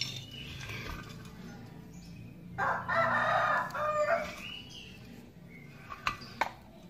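A rooster crows once, starting about two and a half seconds in and lasting over a second. Two sharp clicks follow near the end.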